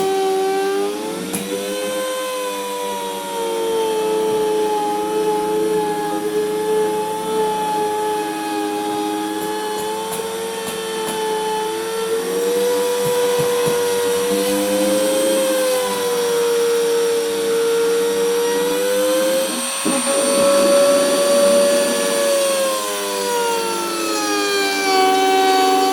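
High-speed electric router running while cutting grooves into a wooden door, its motor whine sagging and recovering in pitch as it is pushed through the wood. The cutting noise thickens briefly around two-thirds of the way through.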